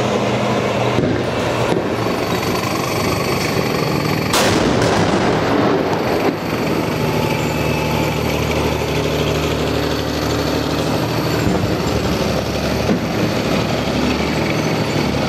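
ZSU-23-4 Shilka self-propelled anti-aircraft gun on the move, its engine running with a steady low drone. A single sharp bang sounds about four seconds in.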